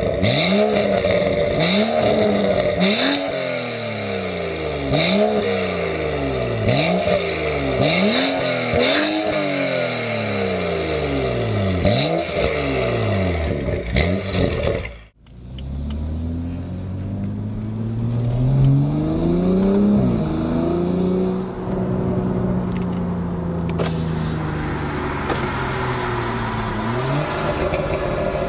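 BMW N55 3.0-litre turbocharged straight-six exhaust being revved hard in quick blips, about one a second, with sharp cracks among them. After a sudden cut it revs up more slowly, holds high revs for several seconds, then drops back near the end.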